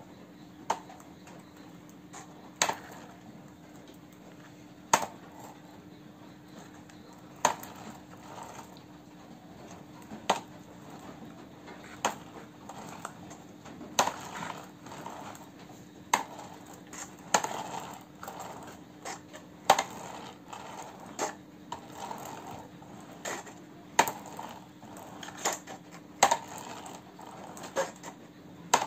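Plastic toy dump truck clacking against a hard floor as it is rocked and tipped by hand: single sharp knocks every second or two, coming closer together in the second half. A faint steady hum lies underneath.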